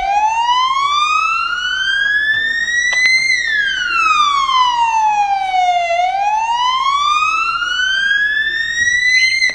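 Emergency vehicle siren sounding a slow wail: the pitch climbs for about three seconds, falls for about two and a half, then climbs again.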